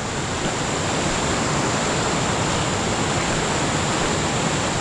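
Steady rush of fast-flowing floodwater running over rocks.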